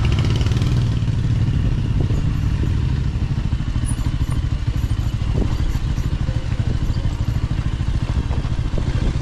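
Motorcycle engine running steadily as the bike is ridden, a continuous fast low pulsing throb.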